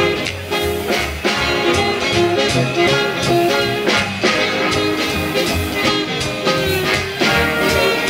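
Upbeat swing-style band music with a steady beat and a walking bass line.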